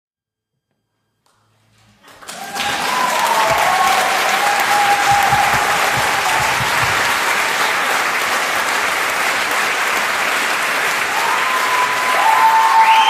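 Audience applauding, breaking out suddenly about two seconds in after a moment of silence and holding steady, with a few cheering voices over the clapping.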